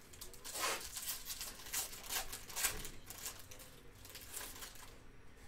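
Foil wrapper of an Upper Deck Engrained hockey card pack crinkling and tearing as it is ripped open by hand, a quick series of rustles and rips that thin out after about four seconds.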